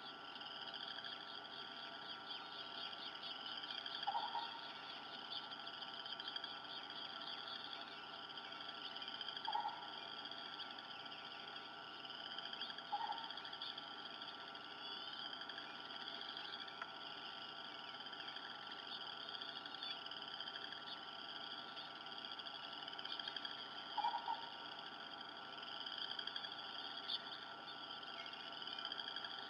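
A faint, continuous chorus of high, wavering animal calls. Four short, lower calls stand out from it: about four seconds in, near ten seconds, near thirteen seconds, and near twenty-four seconds.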